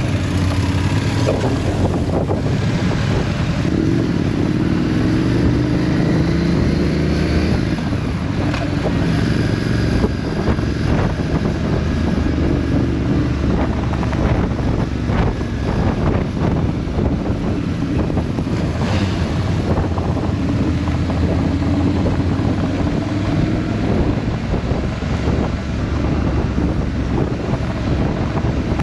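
Several motorcycles riding by in a group, their engine notes rising and falling under a steady rumble, with heavy wind noise on the microphone.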